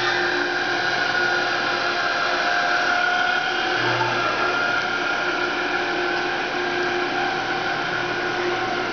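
Artificial-turf roll-up machine running: its drive motor and rollers make a steady mechanical hum with a few held tones over it.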